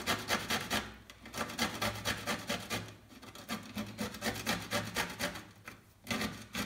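Small pickled gherkin grated by hand on a stainless steel box grater: a quick rasping scrape, about five strokes a second, in runs broken by short pauses.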